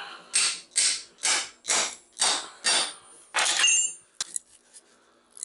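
A hand tool cutting into a scrap transformer with about seven even metal-on-metal strokes, roughly two a second. A brief metallic ring follows, then a single sharp click.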